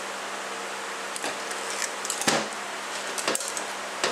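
Steady electrical-sounding hum in the room, with three light metallic clicks about a second apart from hand tools working on an aluminium transmission valve body, the middle one the loudest.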